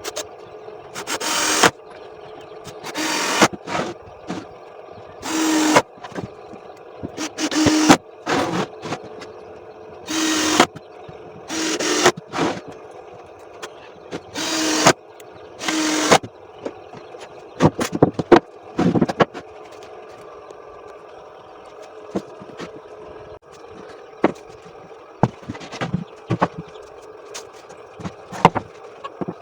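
Power drill run in short bursts of about a second, eight times in the first half, each rising and then cut off. Shorter, sharper clicks and knocks follow in the second half.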